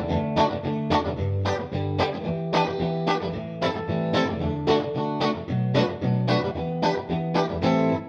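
Squier Bullet HSS electric guitar played in a steady rhythmic pattern of picked chords and notes, about three or four attacks a second, over sustained low notes.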